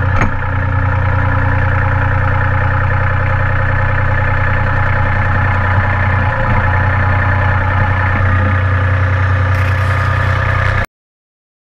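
Branson 2505R compact tractor's diesel engine running steadily, heard close up from the front loader. The sound cuts off abruptly near the end.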